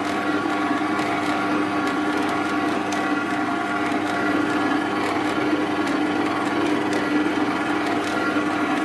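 Stand mixer running steadily, its dough hook kneading bread dough in a stainless steel bowl: an even motor whir with a constant hum.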